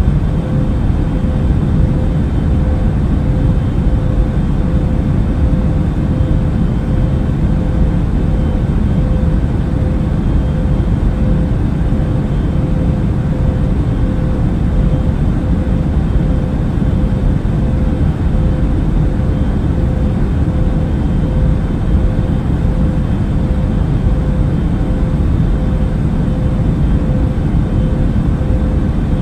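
Airplane cabin noise in flight: a steady, unbroken low rumble of engines and rushing air, with a constant hum running through it.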